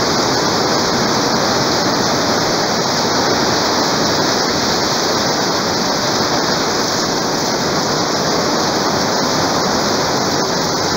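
Torrential rain pouring down on garden plants and the ground, a steady, dense hiss of water that does not let up.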